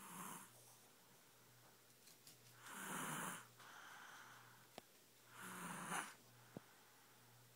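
A sleeping baby snoring: three slow, breathy snores about three seconds apart. Two faint clicks fall between the later snores.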